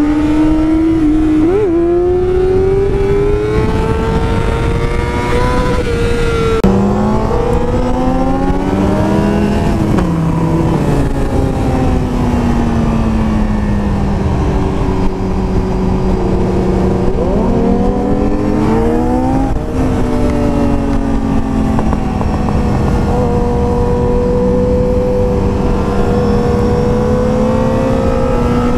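Sport motorcycle engine under way, heard at the rider with a constant rush of wind on the microphone. The revs climb, drop sharply at gear changes about six and a half seconds in and again about ten and nineteen seconds in, and hold steady between.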